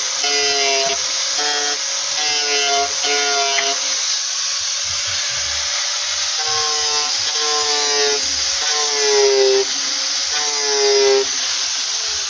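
Electric angle grinder with a sanding disc grinding the edge of a speaker box's round cutout to widen the hole for a larger speaker. A steady grinding hiss runs under a whine that repeats about twice a second, each one dropping slightly in pitch, with a short lull partway through.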